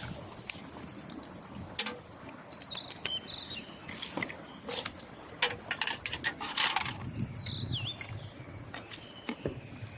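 Birds chirping a few times over repeated short rustles and clicks, which come thickest between about five and seven seconds in, with a steady faint high hiss underneath.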